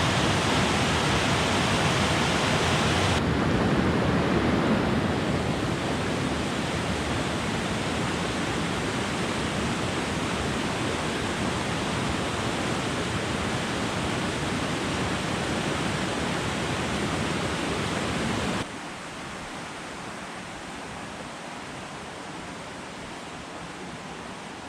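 Steady rushing water of Veterans Falls' cascades. The sound turns duller about three seconds in and drops suddenly quieter about three-quarters of the way through.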